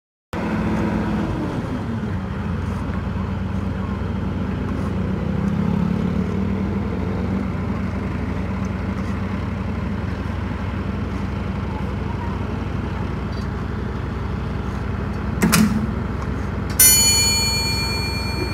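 Wirtgen W 1900 cold milling machine running steadily as it mills the asphalt off the road, a constant low engine hum. Near the end comes a sharp click, then a bright ringing chime that fades.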